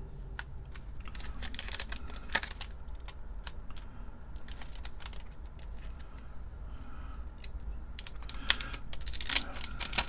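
Small plastic parts bag crinkling and rustling with scattered light clicks as a small switching regulator module is handled and picked out, the clicks and rustles coming thicker near the end.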